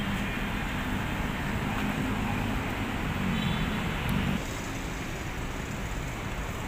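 Steady road traffic noise from busy city traffic, dropping slightly in level about four seconds in.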